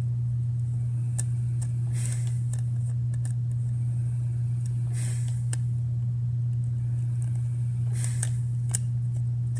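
Steady low electrical-sounding hum, with faint scratching and small clicks now and then as a small screwdriver turns the battery-cover screws in a Furby's plastic base.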